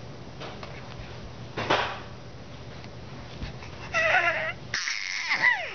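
A five-month-old baby's excited vocalising: a short breathy gasp early, then a wavering squeal about four seconds in and higher, falling squeals near the end.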